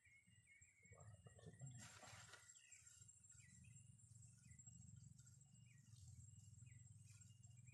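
Faint outdoor ambience: a steady high-pitched insect drone with short, repeated falling bird chirps, and a brief rustle about two seconds in.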